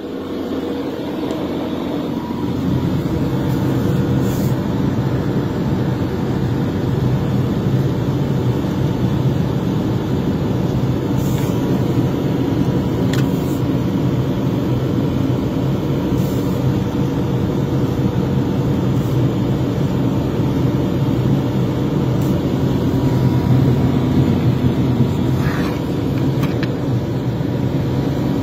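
Victory Sweepers Mark III street sweeper running as it sweeps, heard from inside the cab: a steady engine and machinery drone that grows louder about two seconds in, with a few scattered sharp ticks.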